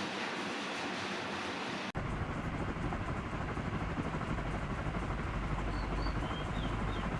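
Steady rushing air from a ceiling fan running, with wind noise on the microphone: a hiss that, after a cut about two seconds in, turns into a deeper rumble.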